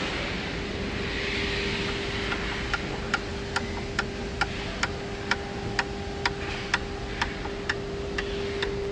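Hand screwdriver driving a screw into a brass drawer handle, with sharp, evenly spaced clicks about twice a second starting about two seconds in. A steady machine hum runs underneath.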